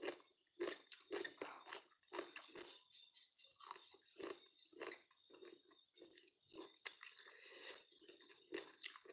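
A person chewing crunchy food with the mouth closed, a steady rhythm of about two to three crunchy chews a second.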